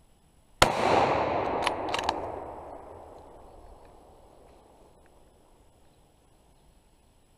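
A single scoped hunting rifle shot, fired at a roe deer doe that shows she is hit, with a long rolling echo through the woods that dies away over about three seconds. A few sharp clicks come just after the shot.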